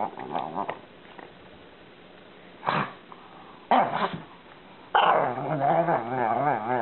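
A pug vocalizing: two short barks about a second apart, then from about five seconds in a long moaning vocalization whose pitch wavers up and down.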